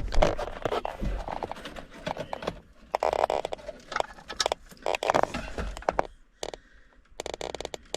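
Irregular clicks and knocks of plastic parts and wiring connectors being handled, with a few short rustling scrapes.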